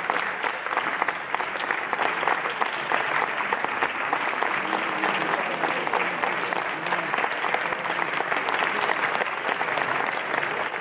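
Audience applauding steadily, dense hand-clapping from a crowd.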